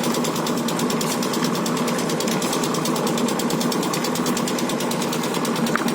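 Construction machinery running steadily, with a fast, even rattle and a constant hum.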